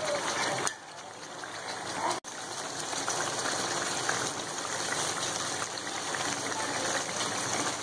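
Ground onion and spice masala sizzling steadily in hot oil in a frying pan. The level drops suddenly about three quarters of a second in, then builds back to a steady sizzle.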